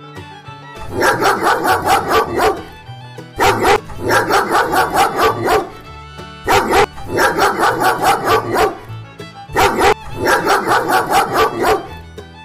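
Dog barking in four bouts of rapid, repeated barks, each about two seconds long, over quiet background music.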